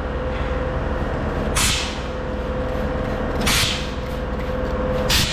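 Spray bottle squirting soapy water onto the welds of a pressurized fuel tank to check for leaks, three short hissing squirts about two seconds apart over a steady low hum.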